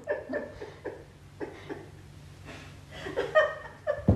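A woman laughing in short, breathy bursts, with a thump near the end.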